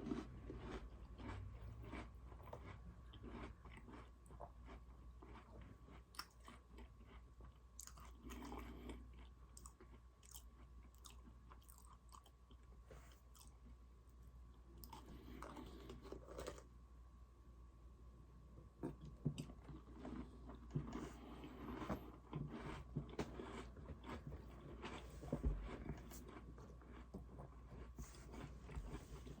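Close-miked chewing and biting of Oreo cookies, with repeated crunches and mouth sounds.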